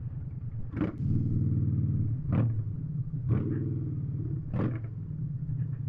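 Harley-Davidson motorcycle engine running under way, getting louder for a second or so about a second in, with a few short bursts of noise over it.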